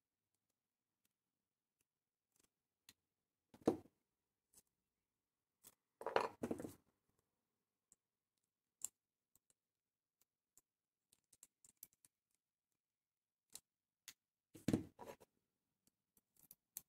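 Pliers working a small rivet out of a radio I.F. transformer: sparse faint metal clicks, with short louder scraping crunches about four seconds in, again around six seconds, and near the end.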